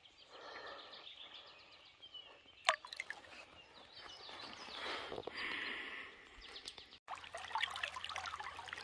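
Faint creek water splashing and trickling around a hand holding a brown trout in the water, with a few faint bird chirps.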